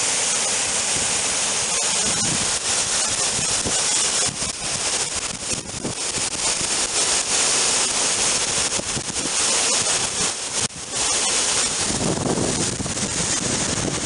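Waterfall on a rocky hill stream: a steady hiss and rush of falling and tumbling water. Wind buffets the microphone near the end.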